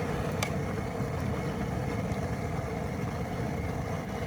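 A vehicle's engine running steadily, a low even hum.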